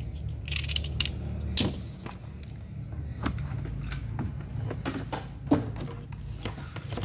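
Small plastic and metal model parts and tools being handled and put away on a workbench: scattered clicks, light knocks and rattles, with one sharper knock late on, over a steady low hum.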